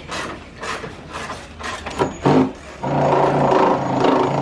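A cordless drill-driver runs steadily from about three seconds in, driving out a fender bolt. Before it come a run of short clicks and scrapes from hand tools working at the fender.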